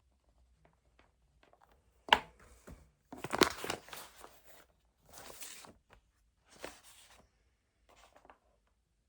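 A sharp click about two seconds in, then four short bursts of rustling and crinkling from something being handled at a desk.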